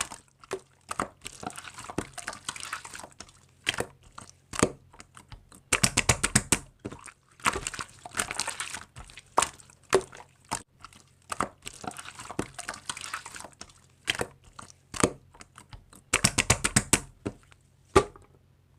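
Slime being squeezed and pressed by hand, making sticky crackles and pops, with two runs of rapid clicks partway through and near the end.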